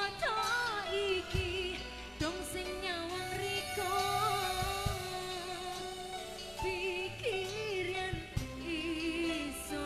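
Live orkes dangdut-style band music: a singer's melody with heavy, wavering vibrato over an electronic keyboard, bass and sharp drum hits.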